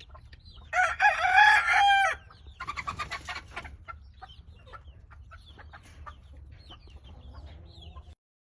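A gamefowl rooster crows once, about a second in, one loud call lasting just over a second. Other chickens cluck and chirp softly around it.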